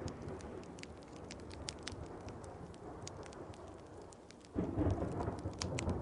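Wood fire crackling with many sharp pops over a steady hiss of rain. About four and a half seconds in, a low rumble of thunder comes in suddenly and is the loudest sound.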